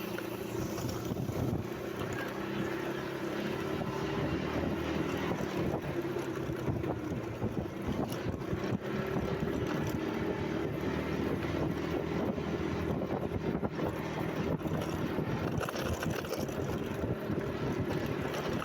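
An engine running steadily at an even pitch, with wind on the microphone.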